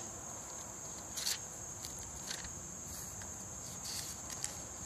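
Steady high-pitched chorus of insects, one even buzz with no break, with a few brief rustles about a second in, around two seconds in and near the end.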